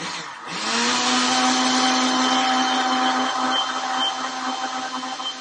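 Countertop blender motor switching on, its pitch climbing over the first half second, then running steadily as it purées banana and egg for pancake batter.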